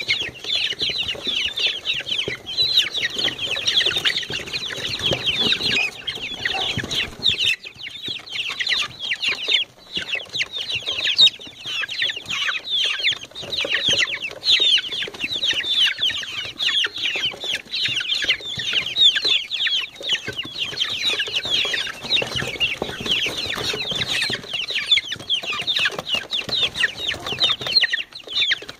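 A brood of four-week-old Light Sussex chicks peeping constantly while feeding, a dense chorus of many short, high, falling peeps overlapping without a break.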